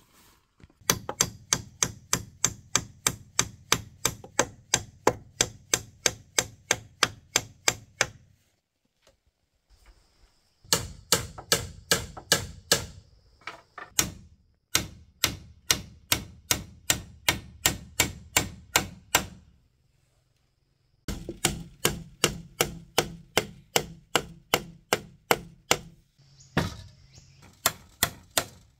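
Hammer striking repeatedly, driving nails into a wooden railing post and rail: runs of steady, ringing blows about three a second, stopping for short pauses four times.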